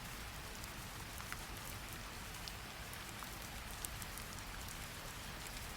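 Steady rain falling, with a few faint individual drop ticks.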